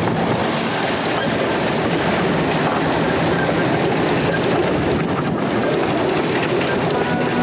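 Miniature passenger train running along its track, heard from one of its open cars: a steady rumble and clatter of wheels on the rails.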